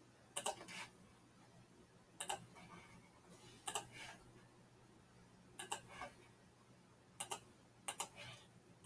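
Computer mouse clicking, mostly in quick pairs, about every one to two seconds, over a faint steady low hum.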